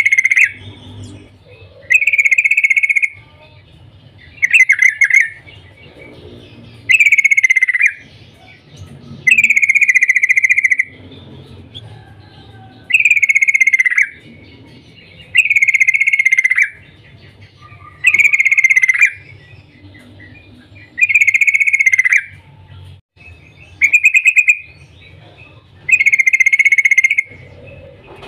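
Yellow-vented bulbul (trucukan) calling, a chattering 'cuk-cuk' call about a second long. The call is repeated every two to two and a half seconds, each one dropping slightly in pitch.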